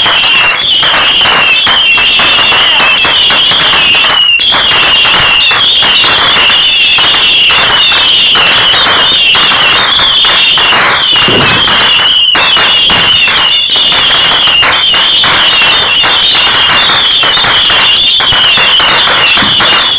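Neighbourhood fireworks and firecrackers going off nonstop, a dense run of bangs and crackles, very loud. A continuous wavering high-pitched tone, like an alarm, runs under them.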